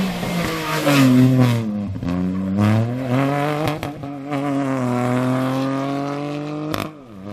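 A small hatchback rally car's engine revving hard at full throttle as the car races past, its pitch climbing and dropping several times before holding high and steady; the sound cuts off abruptly near the end.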